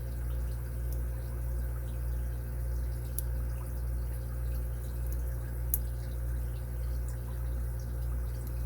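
A steady low hum throughout, with a few faint ticks of a lock pick working the pins of a 5-pin dimple bike lock.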